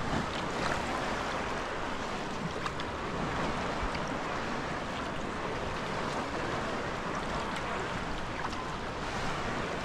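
Sea water washing and splashing around a sea kayak and its paddle as it is paddled, a steady wash with a few faint drips and clicks.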